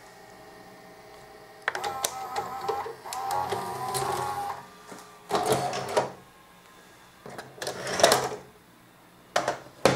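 Sony SVO-2000 S-VHS video deck ejecting a cassette: the loading mechanism whirs with a wavering motor tone for about three seconds, followed by mechanical clunks as the cassette carriage comes up and out, the loudest about eight seconds in, then two sharp clicks near the end as the cassette is pulled out by hand.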